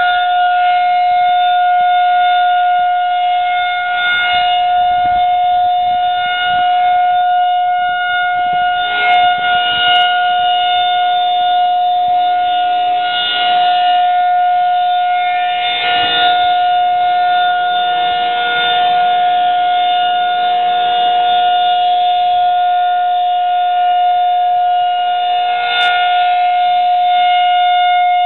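Federal Signal 2001-SRN rotating electromechanical outdoor warning siren sounding its steady Alert signal: one unbroken, steady tone, swelling slightly now and then. It is the monthly test of the siren.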